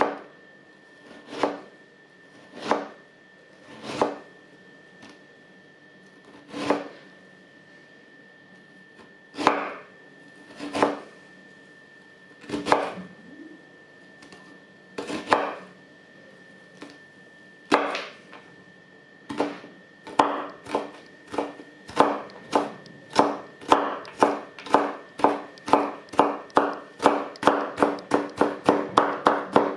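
Stainless-steel kitchen knife slicing a carrot into thin strips on a wooden cutting board, each cut ending in a knock of the blade on the board. The cuts come singly, a second or two apart, then from about twenty seconds in speed up to a steady run of about three a second.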